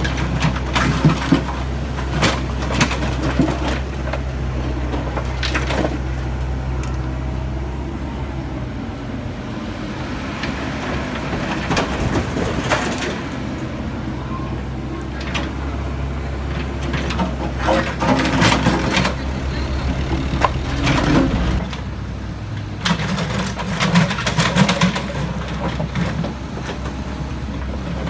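Heavy machinery or truck diesel engines running steadily, their low note shifting twice, with scattered clanks and knocks.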